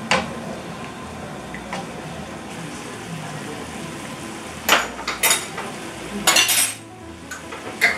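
A pan sauce of cherry tomatoes and white wine simmering in a frying pan with a low sizzle. A utensil scrapes and knocks against the pan, with a few sharp clinks in the second half.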